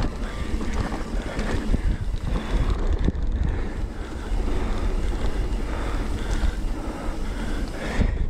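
Wind buffeting the microphone and the rattle of a mountain bike's tyres and frame over a dirt trail, riding fast downhill, with a steady low rumble and scattered knocks.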